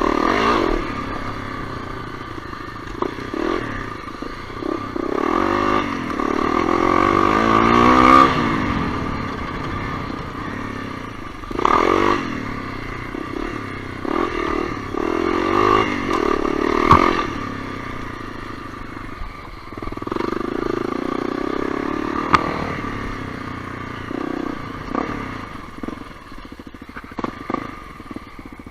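Honda CRF250L's single-cylinder four-stroke engine under way on a dirt trail, its revs rising and falling in repeated surges as the throttle is worked, with occasional knocks and rattles from the bike over rough ground.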